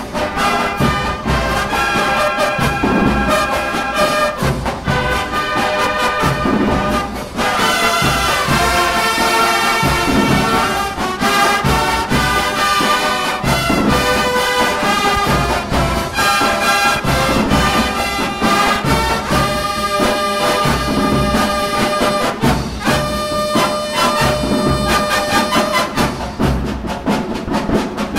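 Drum and bugle corps playing on the field: a brass bugle line carries the melody over steady drum strokes, with a brief break about seven seconds in before a fuller passage.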